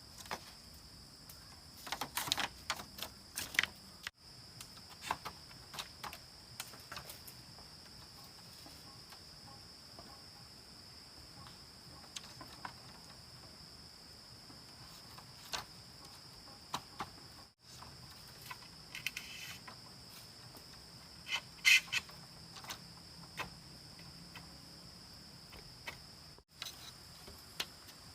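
Steady high-pitched trilling of a forest insect chorus, with scattered sharp clicks and knocks, most of them about two to four seconds in and again near twenty-two seconds in.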